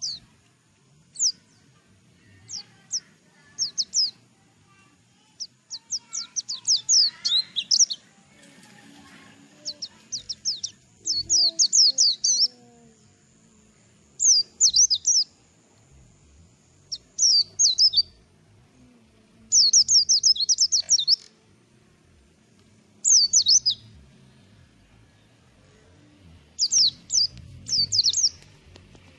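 Mountain white-eye singing: short bursts of rapid, high, downward-sweeping chirps, each burst about a second long, repeated every couple of seconds with short pauses between.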